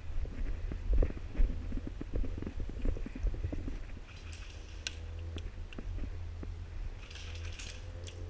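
Footsteps and gear rustling of a player moving, a run of short muffled knocks over the first few seconds, over a steady low rumble, with a couple of brief hissing rustles and a sharp click later on.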